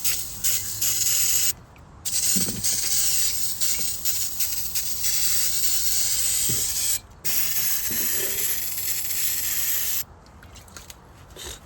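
Aerosol can of brake cleaner spraying in long bursts, with short breaks about two and seven seconds in; the spraying stops about ten seconds in.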